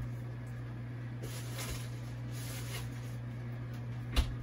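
Steady low hum of a kitchen beside a pan of fried rice on the stove, with soft hissing twice in the middle. A single sharp knock sounds near the end.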